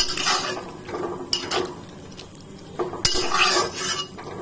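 Metal spatula scraping and clinking against a metal kadai while okra is stirred into a thick masala: a few sharp clinks with softer scraping between.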